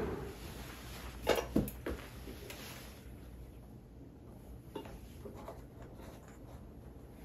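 Objects handled on a desk: two sharp knocks early on as things are set down, then a few light clicks as a wooden flip calendar's blocks are turned, over a quiet room hum.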